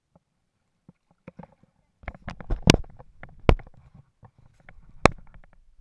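Splashing and knocking in shallow creek water as a hand-held brook trout is let go: an irregular run of knocks and splashes with a low rumble, three sharper knocks the loudest.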